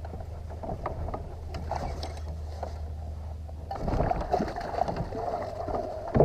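Baitcasting reel cranking as a jerkbait is worked back to the boat, over a steady low hum; the noise grows louder about four seconds in.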